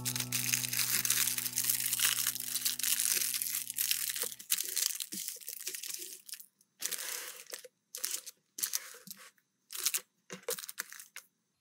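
Clear plastic packaging crinkling as stationery items are handled. It is dense for the first half, then comes in several short separate rustles.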